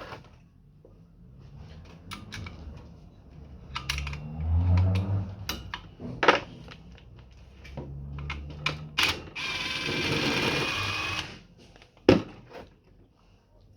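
Metal parts and tools being handled: scattered clicks and knocks, a two-second hiss about nine seconds in, and a sharp knock near the end.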